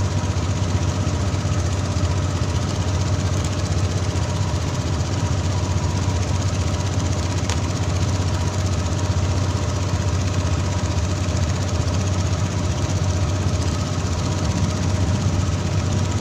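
Fishing boat's engine running steadily under way, a low drone with a couple of steady higher tones, over a constant rush of water.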